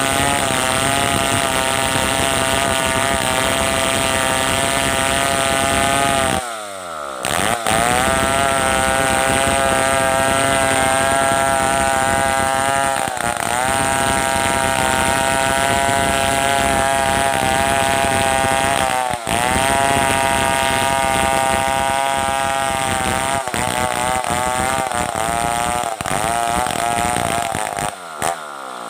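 Stihl 070 chainsaw ripping a log lengthwise, its two-stroke engine held at high revs under load. About a quarter of the way in the engine drops off and revs straight back up, it dips briefly a few more times as the cut goes on, and near the end it falls back toward idle with one short blip of the throttle.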